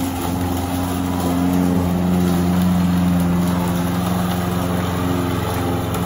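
Walk-behind lawn mower engine running steadily as it is pushed through grass, mowing.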